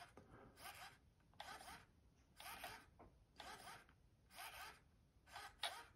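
CHAServo LV06 sub-micro servo running on a low 3.3 volt supply, sweeping its arm back and forth with a short, faint whir of motor and gears on each move, about once a second. Very quiet.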